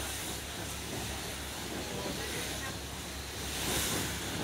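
A boat under way: a steady low engine drone under wind and rushing-water noise, with a louder swell of hiss near the end.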